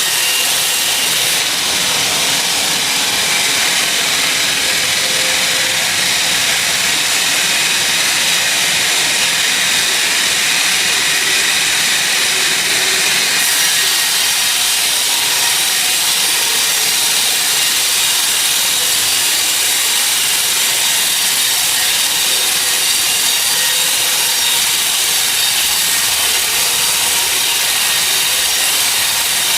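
Sawmill saw cutting through a teak log, a steady, unbroken high-pitched noise.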